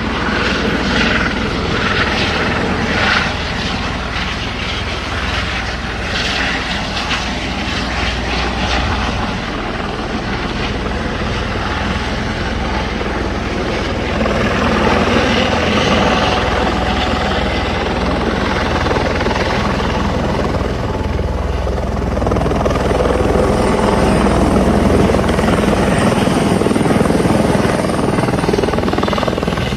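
Helicopter rotor and engine running steadily, a dense continuous noise that grows louder in the second half.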